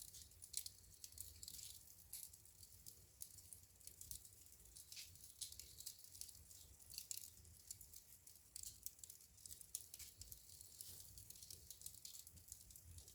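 Wood fire crackling quietly in a fireplace: frequent, irregular small snaps and pops over a faint hiss.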